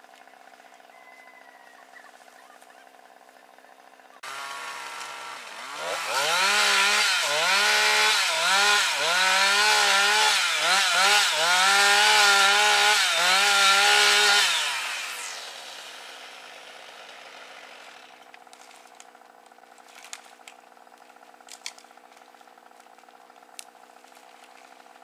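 Two-stroke chainsaw cutting into a chinaberry tree: it starts at idle about four seconds in, revs up, and runs at full throttle for about eight seconds, its pitch dipping again and again as the chain bogs in the wood, then winds down to stop.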